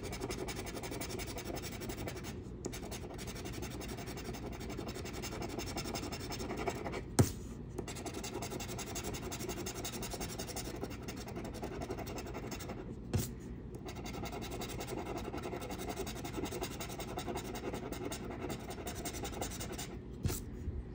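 Scratch-off lottery ticket being scraped with a metal scratching tool, rubbing the coating off in steady strokes with a few short pauses. A sharp tap sounds about seven seconds in, with fainter taps later.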